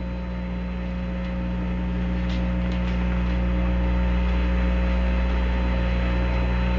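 Steady low hum and hiss of the Apollo 11 mission radio audio between transmissions, slowly growing louder.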